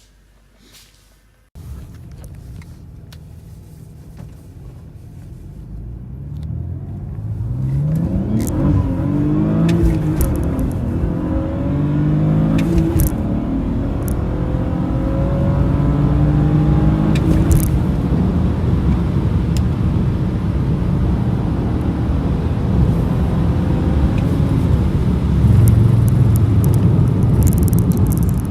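BMW 335i's turbocharged inline-six under acceleration while driving. The engine comes in suddenly about two seconds in, climbs in pitch through several rising sweeps as it speeds up, then holds a loud, steady running sound.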